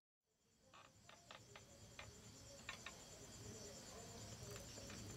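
Faint insect chirring, likely crickets: a steady, fast-pulsing high trill fading in from silence, with scattered light clicks and taps from about a second in.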